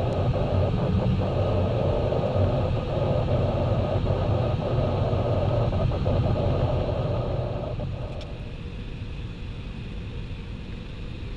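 Cabin noise of an Airbus A320 on its descent to land: a steady rumble of jet engines and rushing air, heard from a window seat over the wing. About eight seconds in the noise drops noticeably and stays lower.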